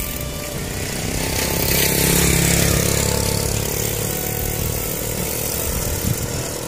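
Motorcycle engine passing, swelling to its loudest about two seconds in and then easing off, over steady wind and road noise.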